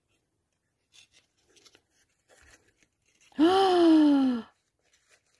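Faint crinkling of tissue paper being pulled from a small folded paper gift box, then a woman's long drawn-out 'ooh', falling in pitch, lasting about a second, about three seconds in.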